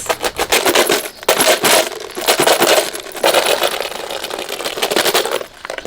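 Homemade shaker, a plastic yogurt pot holding small hard fillers, shaken hard: a dense rattle of many quick clicks in uneven surges, stopping shortly before the end.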